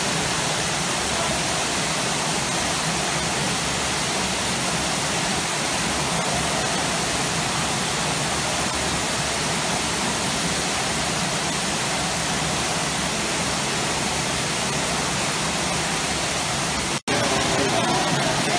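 Steady rushing and churning of water in a hydrotherapy pool, its jets stirring the surface and a spout pouring in. The sound cuts out for an instant near the end, then resumes slightly louder.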